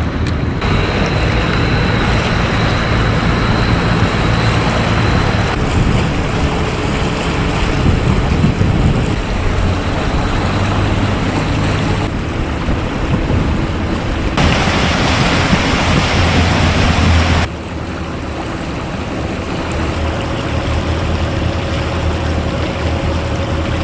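Outdoor harbour sound with wind buffeting the microphone over moving water, with a low engine hum underneath. The noise changes abruptly several times where the footage is cut.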